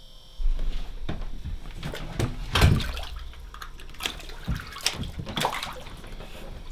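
Water sloshing and splashing with irregular knocks, as a fish is brought up through the ice-fishing hole.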